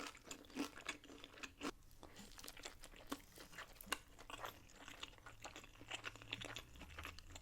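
Someone chewing crunchy food close to the microphone: a faint, irregular run of small crunches.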